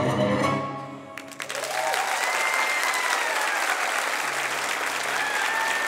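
Tango music ends about a second in, and audience applause follows, with a few long calls from the crowd over the clapping.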